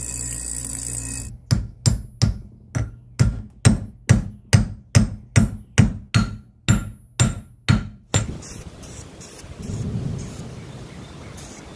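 A bench grinder runs for about a second, grinding a small piece of steel. Then about sixteen quick, evenly spaced hammer blows follow, a little over two a second, each with a short metallic ring, as the sledgehammer head is seated onto its new wooden handle.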